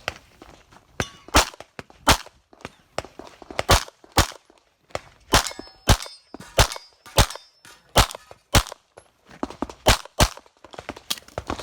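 A string of 9mm pistol shots fired one after another at irregular intervals of about half a second to a second and a half, in an IPSC course of fire. Several shots are followed by a brief metallic ring, typical of steel targets being hit.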